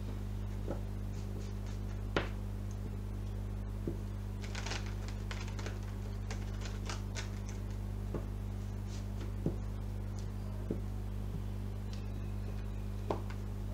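Tarot cards being shuffled by hand, with a run of quick, crisp card flicks in the middle and single sharp card clicks now and then, over a steady low hum.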